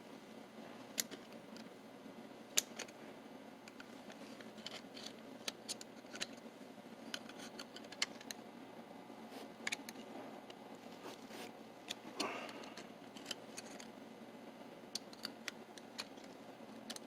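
Small metal parts of a mortise lock clicking and tapping as the case cover is worked onto the lock body: light, irregular clicks with pauses between them, and a short scrape about twelve seconds in.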